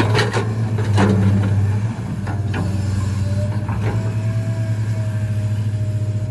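Plastic toy excavator being handled: a few scattered clicks and knocks, over a steady low hum.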